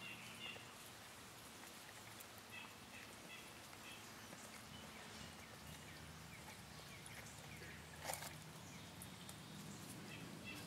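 Faint steady trickle of a small woodland stream, with a few short high chirps a few seconds in and one sharp click about eight seconds in.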